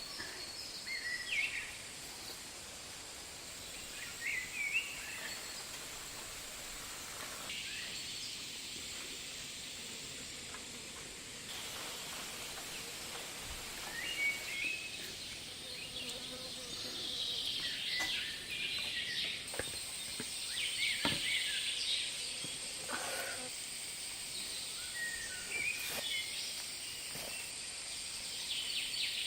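Outdoor forest ambience: scattered short bird chirps over a steady high hiss, with a few faint clicks.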